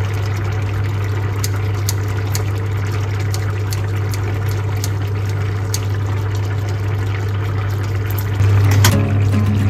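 Steady low electrical hum from a kitchen appliance, with scattered light ticks over it. It gets louder about eight seconds in.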